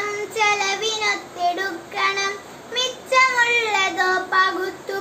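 A young girl singing solo and unaccompanied, holding long notes that slide from one pitch to the next, with short breaths between phrases.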